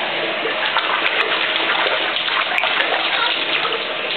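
Handheld shower head running, its spray pouring into the water of a plastic baby bath: a steady rush of water.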